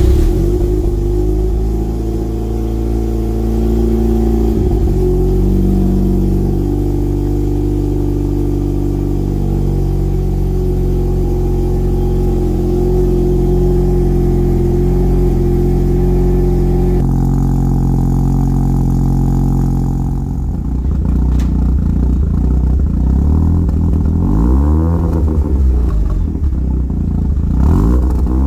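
Mazda RX-7's twin-rotor rotary engine idling steadily just after a cold start, its note shifting slightly about 17 seconds in. From about 20 seconds in it is revved a few times, the pitch rising and falling with each blip of the throttle.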